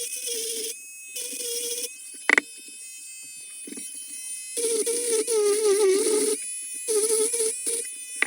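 Dremel rotary tool whining in short runs, its pitch wavering as it bears on the rusted blade of a clasp knife, cutting out and starting again several times. A sharp click a little over two seconds in.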